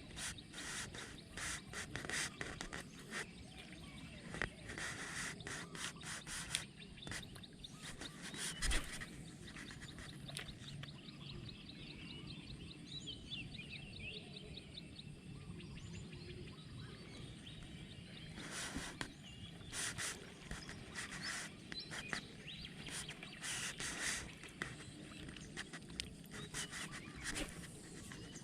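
Birds chirping in open rural surroundings, with frequent short rustles and clicks that come in clusters near the start and again later on.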